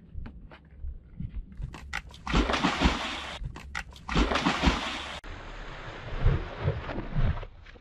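A man splashing into water beside a bamboo platform: a few light knocks, then heavy splashing from about two seconds in, which comes again in a second burst about halfway through.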